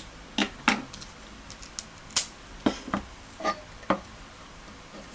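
A scatter of light clicks and knocks from handling a tin can, scissors and a roll of duct tape on a tabletop, about eight in all, the loudest about two seconds in.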